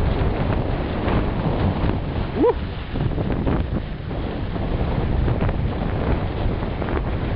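Wind rushing over the camera microphone during a downhill ski run on wet spring snow, with the skis sliding over the slush. A short rising tone cuts in once about two and a half seconds in.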